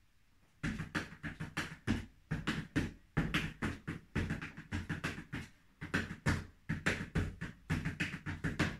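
Flamenco footwork stamps and taps in flat shoes on a wooden floor: a quick, uneven run of sharp thuds, about three to four a second, starting about half a second in.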